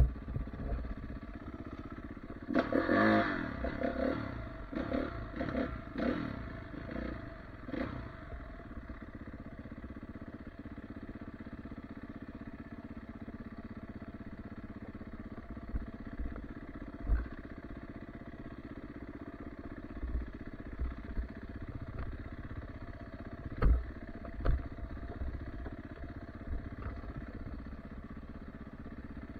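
Off-road dirt bike engine revving hard in repeated bursts for the first several seconds, then running more steadily at lower revs, with a few sharp thumps as the bike rides over trail bumps.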